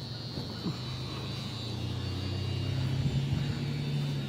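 A passing car's engine, a low steady hum that swells and then fades as the vehicle drives away.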